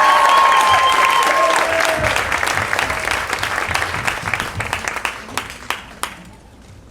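Audience applause, loud at first and slowly dying away over several seconds.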